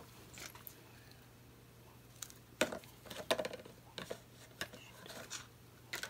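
Irregular light clicks and taps of plastic painting tools being handled: a plastic cup and a plastic stir stick knocked and set down, several in quick succession about halfway through.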